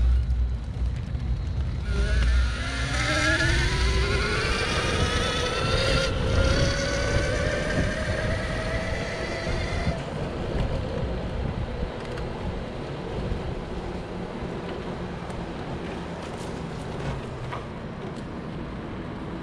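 Electric-skateboard brushless motor (MBoards 6374 180KV) driving a wheelchair power-assist wheel: its whine rises in pitch from about two seconds in as the chair speeds up, then holds steady until about ten seconds in. Low rumble of the wheels on pavement at the start; after the whine ends, a steady rushing noise fills the rest.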